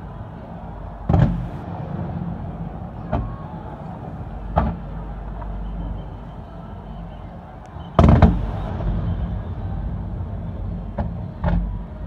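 Aerial firework shells bursting: about six booms with short echoing tails, the loudest about eight seconds in, over a steady low background noise.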